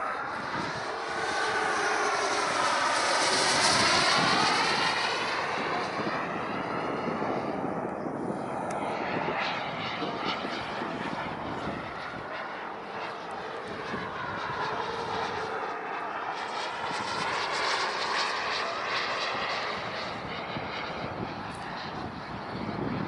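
Engine of a small model sport jet in flight: a continuous jet rush that swells loudest a few seconds in as it passes close, fades, then swells again on later passes, with a whooshing sweep up and down in pitch each time it goes by.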